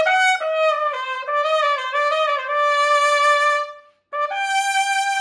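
Solo trumpet playing the slow closing phrase of a lyrical etude: a few moving notes, then a long held note that stops about four seconds in. After a short breath, a brief note leads up to a final held note.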